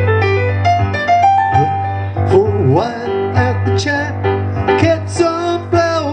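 Electric keyboard played live, piano-voiced chords and runs, with a man's singing voice coming in about two seconds in over the keys.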